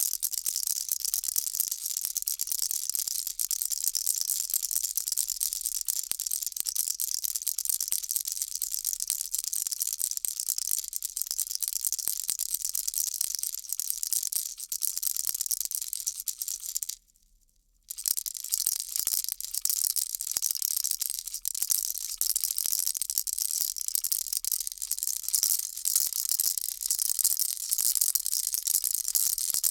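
Baby rattle shaken continuously, a dense, high, fizzing rattle of many small clicks that swells and eases in gentle waves. It stops for about a second in the middle, then starts again.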